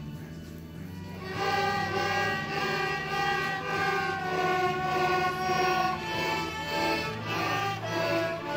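Children's school string ensemble of violins and a cello playing slow, long-held notes that change pitch about once a second. It is softer for the first second before the next phrase comes in. The players are beginning string students.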